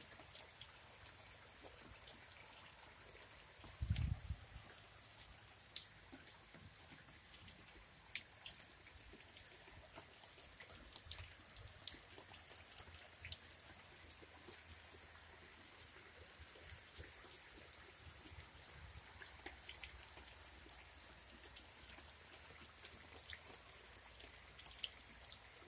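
Light rain falling, with single drops striking close by as sharp, irregular ticks, several a second. There is a brief low rumble about four seconds in.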